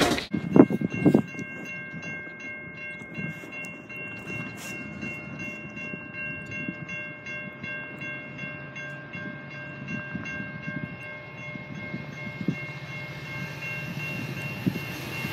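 Grade-crossing warning bell ringing steadily. Over the last few seconds the rumble of an approaching freight train led by a Norfolk Southern SD40E grows louder underneath. A few knocks sound in the first second.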